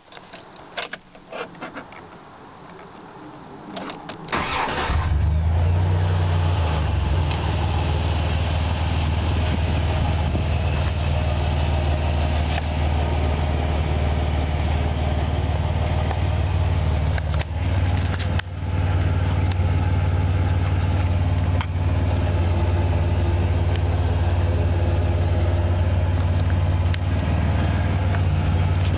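1996 Dodge Dakota 4x4 pickup's engine cranked by the starter about four seconds in, catching at once and settling into a steady idle.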